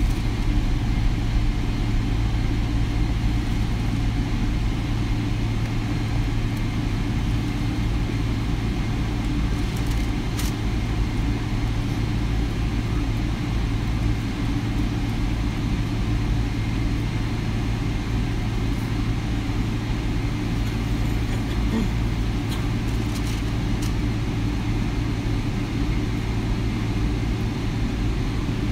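Steady cabin noise inside a Boeing 787 Dreamliner on the ground, a low engine hum under an even rush of air, with a couple of faint clicks.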